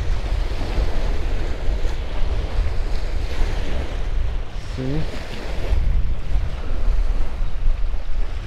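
Wind buffeting the microphone in a steady low rumble, over the wash of small waves on the shore. A brief faint chirp comes about halfway through.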